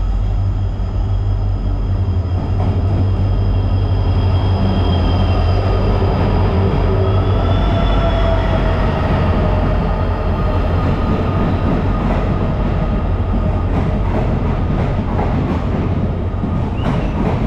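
Passenger train arriving: the locomotive passes close with a steady heavy rumble, then the coaches roll by, their wheels clicking over rail joints in the last few seconds.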